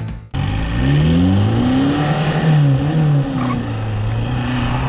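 VW T3 Joker camper van with a swapped VP 110 engine and an oversized turbo, accelerating: the engine note rises, drops at a gear change about two seconds in, climbs briefly again, then runs on fairly steadily. Wind rushes past the microphone.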